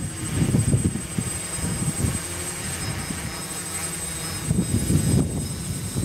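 Strong wind buffeting the microphone in gusts over the steady whir of a DJI F450 quadcopter's motors and propellers, with a thin high whine throughout. The gusts are heaviest at the start and again about four and a half seconds in, easing in between.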